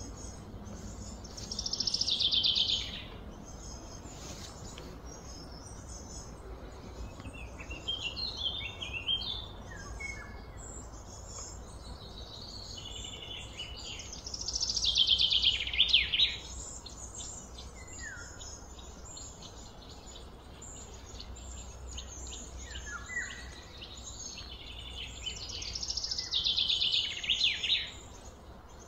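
Birds singing outdoors: three loud, rapid trilled phrases about twelve seconds apart, with shorter chirps and quick sliding notes between them, over a steady low background rumble.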